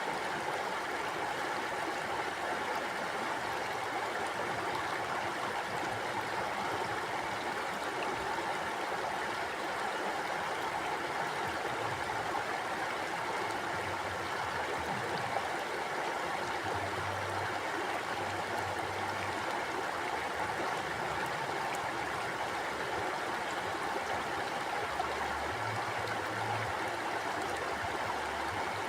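Mountain stream flowing over rocks: a steady rush of running water with no breaks.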